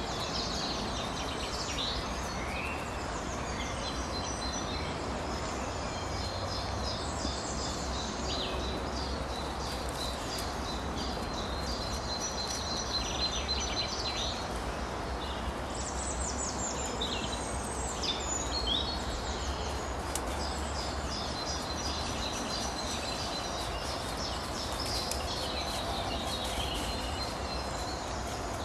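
Several songbirds singing at once, overlapping chirps and trills throughout, over a steady background hiss and low rumble.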